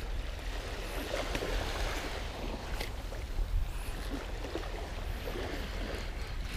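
Wind rumbling on the microphone over small waves washing on a sandy shore, with a few faint clicks.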